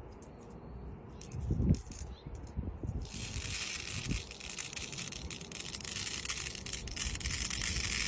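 White squishy stress ball pressed by hand onto a pin art toy of red plastic pins. First come a few dull handling thumps, the strongest a little under two seconds in. Then, from about three seconds in, a dense, steady crackling rattle as the pins slide in their frame.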